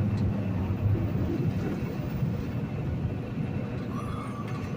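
Steady drone of a semi truck's diesel engine and road noise, heard from inside the cab while driving on the highway.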